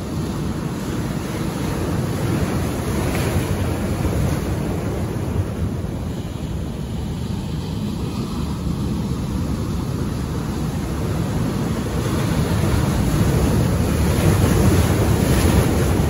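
Ocean surf washing in over shoreline rocks: a continuous rush of breaking water and foam that swells and eases, building to the loudest wave near the end.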